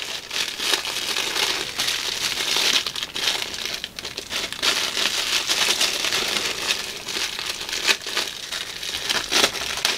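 Clear plastic packaging bag handled and pulled open by hand, crinkling steadily with many small crackles.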